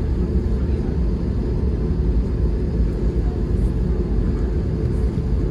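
Cabin noise of an Airbus A320neo taxiing, heard from a window seat over the wing: a steady low rumble of the jet engines at taxi power.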